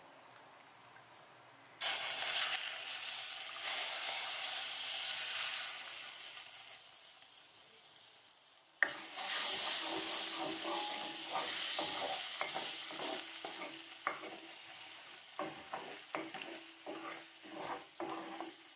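An egg hits a hot Lodge 9-inch cast iron mini wok and starts sizzling about two seconds in, the sizzle slowly fading. From about halfway a wooden spatula scrapes and taps against the iron as the egg is stirred and spread across the pan, over renewed sizzling, as part of seasoning the wok.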